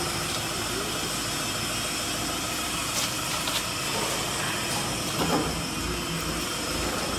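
Steady mechanical running noise with a hiss, with a faint click about three seconds in.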